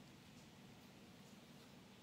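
Near silence: faint room tone, a steady low hum under soft hiss.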